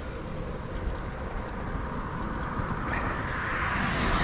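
Steady wind and road rumble while cycling on a wet road in the rain. A hiss swells up over the last second or so.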